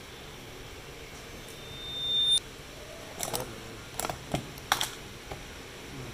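A steady high-pitched beep that grows louder for about a second and cuts off sharply. It is followed by five or six sharp clicks and knocks as a clear plastic food container is handled close to the microphone.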